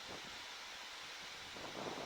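Faint steady hiss of airflow and ventilation on a Boeing 737-800 flight deck during the approach.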